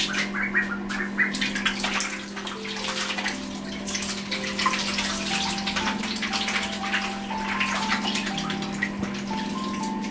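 Young ducks dabbling and paddling in a small plastic paddling pool, with irregular light water splashes and sloshing. Soft background music with slowly stepping held notes plays under it.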